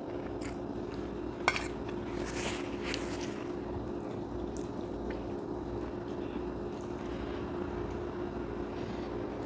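Eating a plate of noodles: a fork or spoon clicks sharply on the plate about a second and a half in, followed by a short slurp and a few lighter clinks.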